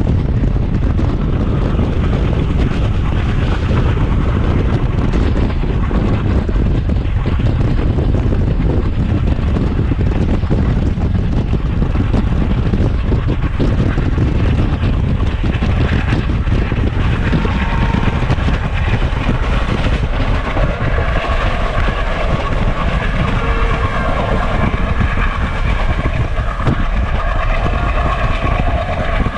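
Train running, with a heavy low rumble throughout; from about halfway, several steady higher tones rise above it.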